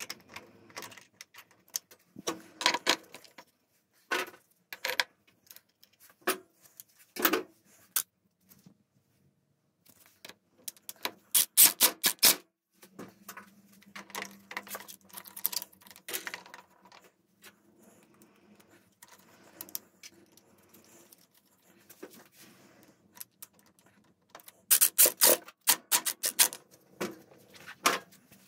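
Scooter variator parts being handled and fitted together by hand: scattered clicks and knocks, with quick runs of clicks about halfway through and again near the end.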